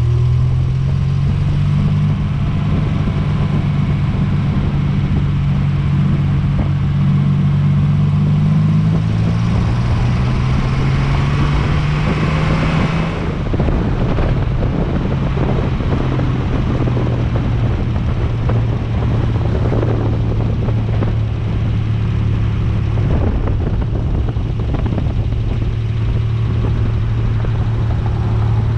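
MGC-GT's straight-six engine pulling the car under load, its pitch rising until a dip and gear change about 13 seconds in, then holding a steady drone at cruising speed, with wind and road noise.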